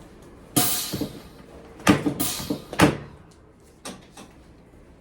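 Bumps and rustling of a person shifting on a padded treatment table: four louder scuffs in the first three seconds, then two faint ones.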